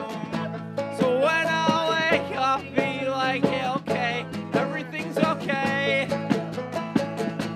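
Acoustic band performance: strummed acoustic guitar and quickly picked banjo notes under a singing voice.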